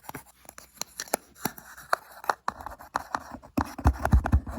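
Close-microphone ASMR ear-cleaning sounds: a quick, irregular run of sharp clicks and scratches on the microphone, turning into heavier low rubbing thumps near the end.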